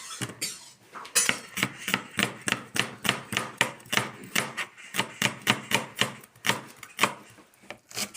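Knife chopping onions finely on a board, steady knocks about three a second.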